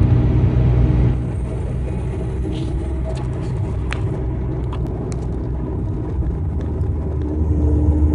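Volkswagen Jetta engine running steadily with a low rumble, a little louder for the first second, then settling, and rising again near the end.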